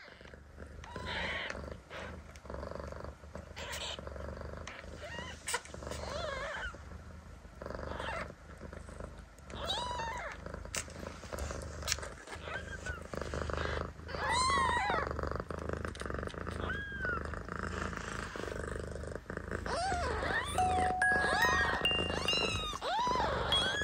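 Newborn Ragdoll kittens mewing in many short, high squeaks that rise and fall, while they nurse, over the mother cat's steady low purr. The squeaks come more often near the end.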